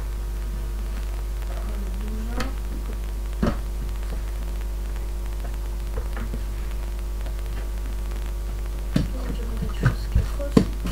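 Steady low electrical mains hum from weak recording gear, with occasional light knocks as cardboard boxes are handled and set down on a cloth desk mat: one about three and a half seconds in, another around six seconds, and several in quick succession near the end.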